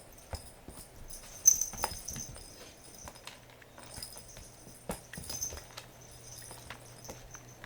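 A cat toy being batted and shaken: scattered light taps and clicks with short, high jingles, the loudest about one and a half seconds in.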